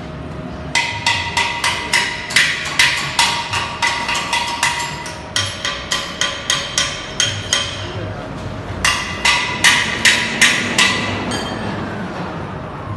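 Paving block moulding machine knocking steadily, sharp ringing metal-on-metal strikes about three a second, over a steady machine hum. The knocks come in three runs with short breaks, the longest starting about a second in.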